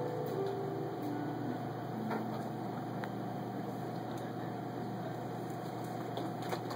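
Lever harps ringing out the closing notes of a piece: a slow descending run of single plucked notes, each held and fading, over a steady low hum. A few claps begin near the end.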